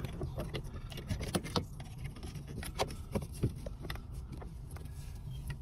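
Scattered light clicks and rattles of plastic wiring-harness connectors and wires being handled and plugged at the back of a Ram 2500 radio unit, over a low steady rumble.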